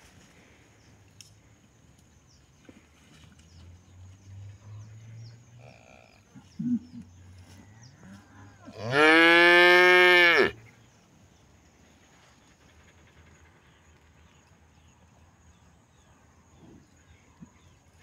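A cow moos once, loudly: one long call of about two seconds that rises and then falls in pitch, about nine seconds in. A short low sound comes a couple of seconds before it.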